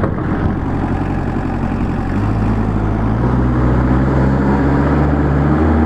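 The Finn T90 hydroseeder's engine running steadily. About two seconds in, its note steps up and gets slightly louder as the clutch is engaged to drive the hose pump.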